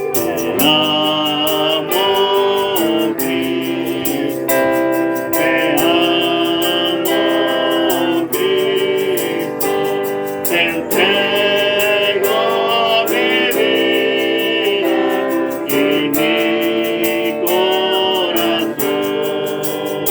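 A slow Spanish-language Christian worship song: held, wavering sung notes over instrumental accompaniment with a steady beat.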